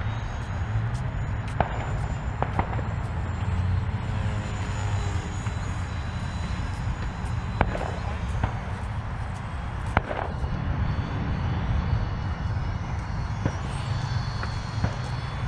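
Faint, distant whine of an FMS Rafale 80 mm electric ducted-fan model jet flying slow high-alpha passes, under a steady low rumble on the microphone and several sharp clicks.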